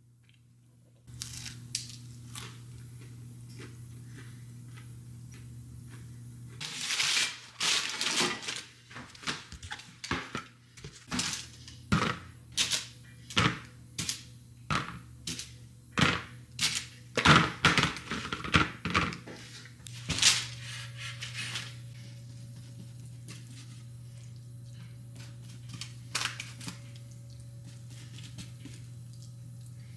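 Biscuits being lifted off a parchment-lined baking sheet with silicone-tipped kitchen tongs and set into a plastic storage container. It makes an irregular run of clicks, knocks and paper crinkles, one or two a second, from about seven seconds in until about twenty seconds, over a steady low hum.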